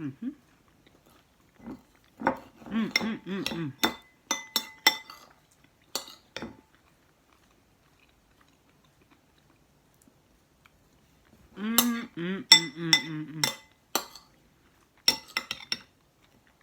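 Cutlery clinking and tapping against a dish in a string of sharp, briefly ringing clicks, heard in two bursts. Between them a person's voice makes a few short sounds that carry no clear words.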